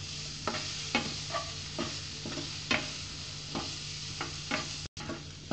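Chopped onion sizzling as it sautés in hot oil and spices in a frying pan, stirred with a spatula that knocks and scrapes against the pan about twice a second.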